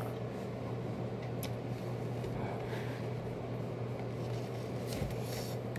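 Steady low hum and room noise in the hall, with a faint knock about five seconds in.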